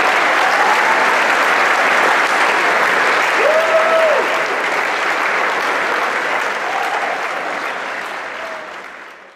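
Audience applauding in a large hall, with a few shouts over it, fading out over the last few seconds.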